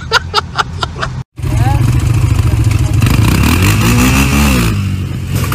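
Voices and clicking for about a second, cut off suddenly; then an ATV engine runs loudly and revs, its pitch rising about three seconds in before easing off near the end.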